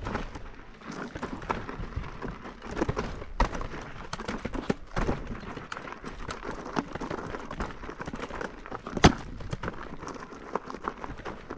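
Electric unicycle's knobby tyre rolling and dropping over loose rocks and gravel on a rocky trail, giving an irregular clatter of knocks and crunches. The sharpest knock comes about nine seconds in.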